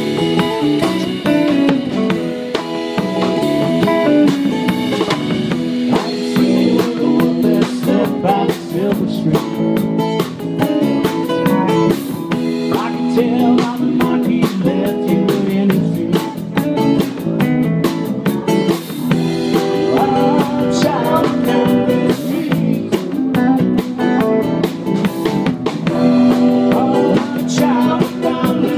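Live band playing a song: strummed acoustic guitar, electric guitars and drum kit, with a man singing.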